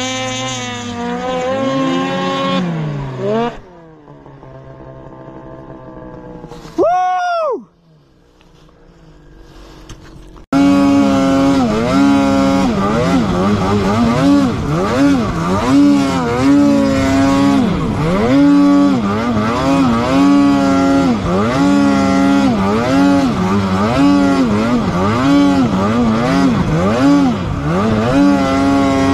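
Snowmobile engines revving. At first a sled runs steadily and then its pitch drops about three seconds in, with a single quick rev about seven seconds in. From about ten seconds in, a snowmobile ridden through deep powder is louder, its engine pitch rising and falling again and again as the throttle is worked.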